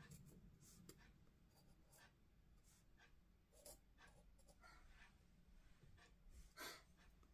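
Faint scratching of a graphite pencil on sketchbook paper: short, irregular strokes as leaves and branches are shaded in, with one longer, louder stroke near the end.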